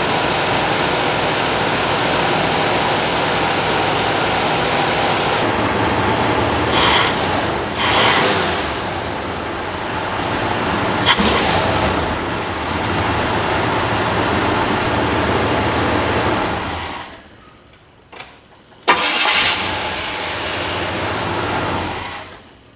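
1980 Cadillac 368 (6.0 L) V8 running steadily on its freshly replaced timing chain and gears, with a few sharp clicks over the top. About 17 seconds in the sound drops away; after a sharp knock the engine noise returns for a few seconds, then stops again near the end.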